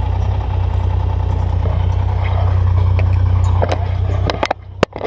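Truck engine running at a low, steady idle-like rumble while the truck is manoeuvred with a trailer. Near the end the rumble drops away sharply, and a few sharp clicks or knocks follow.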